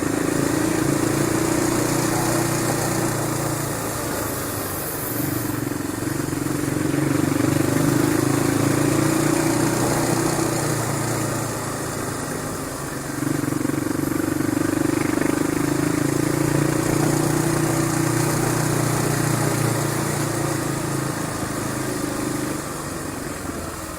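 Motorcycle engine running under way, its note swelling in three stretches with dips between, over a steady rush of noise.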